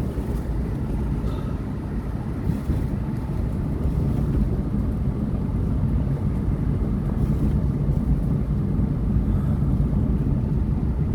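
Car driving along a road: a steady low engine and road drone that slowly grows a little louder.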